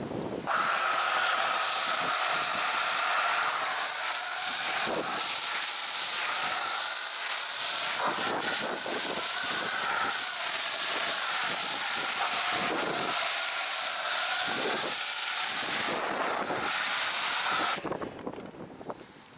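Chemical Guys Torq Big Mouth foam cannon on a pressure washer spraying snow foam: a steady, loud hiss that starts about half a second in and stops shortly before the end.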